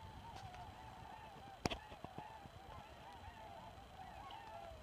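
A large flock of geese honking, many short calls overlapping without a break. There is one sharp click about a second and a half in.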